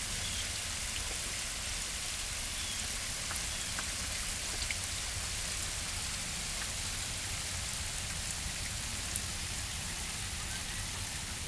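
Falling water splashing steadily: an even hiss with faint scattered drips.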